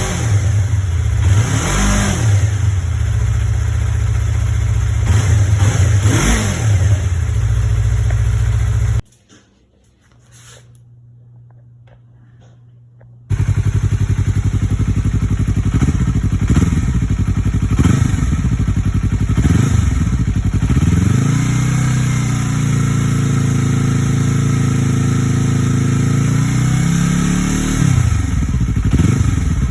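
2017 Yamaha R3's parallel-twin engine running through an aftermarket full exhaust system, idling with short throttle blips. The sound drops away for a few seconds about nine seconds in. Later the engine is held at raised revs for several seconds before falling back to idle near the end.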